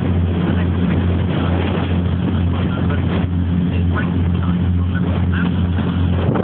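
Ferry's engine running with a steady low drone, under a constant rushing wash.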